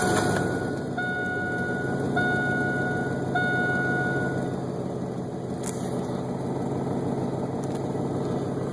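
1999 Chevy Silverado 1500 Z71 engine catching as it is started, then idling steadily, heard from inside the cab. The exhaust runs without catalytic converters, through patched pipe and the stock muffler. A dashboard warning chime dings about once a second and stops about four and a half seconds in.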